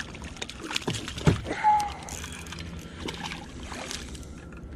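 Hooked crappie splashing and thrashing at the water's surface as it is played in, in a series of short splashes, loudest about a second and a half in.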